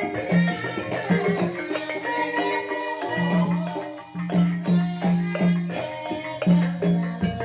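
Banyumasan gamelan music in the ebeg style: interlocking struck pitched percussion over a recurring low note, with rattling percussion on top.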